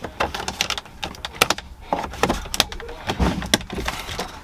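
Plastic dashboard trim of a 2021 GMC Sierra being pried and pulled loose with a plastic trim tool: a run of irregular clicks and snaps as the panel clips give.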